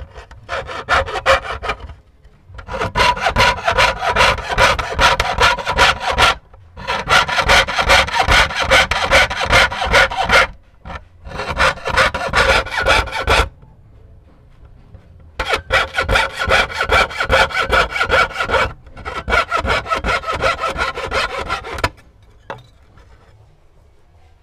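Hand fretsaw cutting thin brass sheet along a paper template, in quick, even back-and-forth strokes. The cutting comes in several runs with short pauses between them and stops about two seconds before the end.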